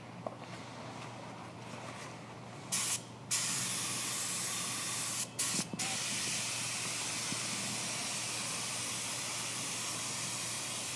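Compressed-air paint spray gun spraying paint: a short hiss about two and a half seconds in, then a steady hiss from about three seconds on, broken by two brief stops around five seconds.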